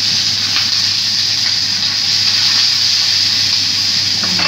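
Whole fish sizzling in hot oil in a nonstick frying pan, a steady hiss, with a few light taps of a wooden spatula against the fish and pan.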